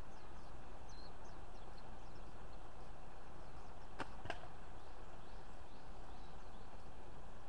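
Two sharp clacks about a third of a second apart, about four seconds in, from the sticks of a handmade nunchaku knocking together while being twirled. Under them runs a steady outdoor background hiss with faint bird chirps.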